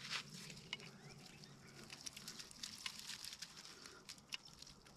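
Faint, irregular light clicks and rustles as yabbies are shaken out of a wire-mesh trap into a hand net.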